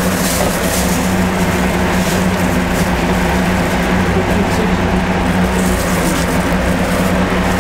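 Steady, unchanging machine hum with an engine-like drone, its level constant, with a few faint light clicks over it.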